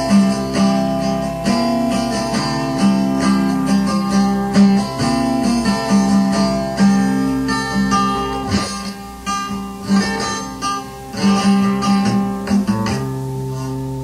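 Strummed acoustic guitar music from a 1983 cassette tape recording played back on a tape deck. About a second before the end, the strumming stops and a steady held tone remains.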